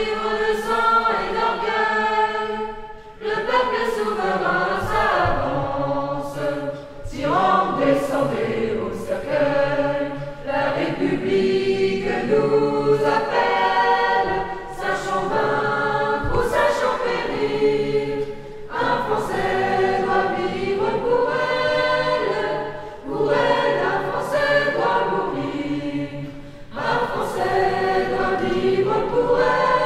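A choir singing, in phrases of a few seconds with short breaks between them.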